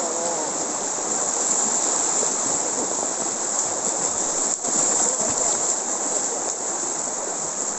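Shallow, fast-flowing rocky river rushing steadily, with splashing from legs wading through the current.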